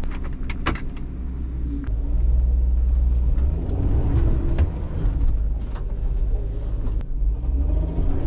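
Ram ProMaster van's engine running and revving under load as the van tries to pull away on a snowy slope, a low rumble that swells about two seconds in and surges unevenly. A few light clicks come just before it.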